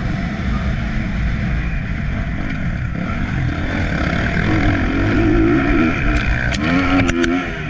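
Motocross bike engine running under load as the bike is ridden, its pitch rising and falling with the throttle, with two clear revs in the second half, over heavy wind rush on the onboard microphone. A few sharp clicks come near the end.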